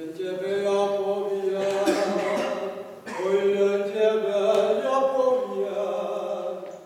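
A man singing solo and unaccompanied, with long held notes in two phrases broken briefly about three seconds in.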